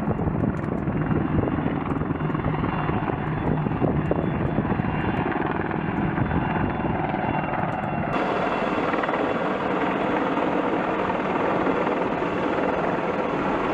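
Military helicopter running steadily, its turbine and rotor blades chopping. About eight seconds in the sound shifts abruptly to a brighter mix, as at a cut to another shot of the helicopters.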